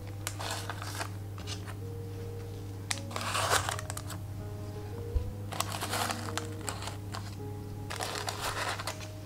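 Parchment paper squares rustling in four short bouts as buns sitting on them are set down into a bamboo steamer basket, over background music.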